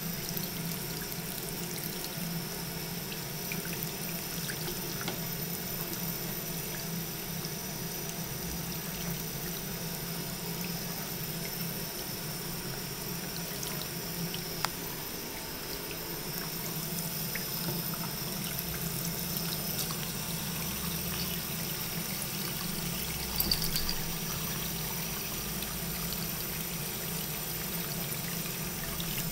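Bathroom sink faucet running in a thin, steady stream, pouring over a cat's head and splashing into the basin, with one brief tick about halfway through.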